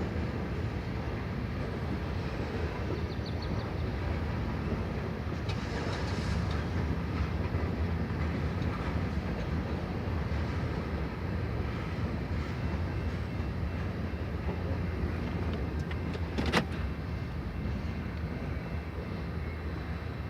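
CN freight train rolling past with a steady rumble of wheels on rails. A sharp metallic clank comes about sixteen seconds in.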